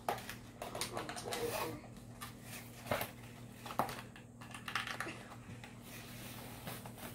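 Small cardboard box being handled and opened by hand: irregular taps, clicks and scratchy rustles of fingers working at the cardboard and its end flap, with a sharp knock near the end.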